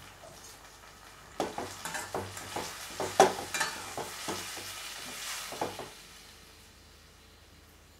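Metal spatula stirring and scraping chopped tomatoes and onions in a stainless steel pan as they fry, a quick run of knocks and scrapes against the pan over a light sizzle for about four seconds, then stopping.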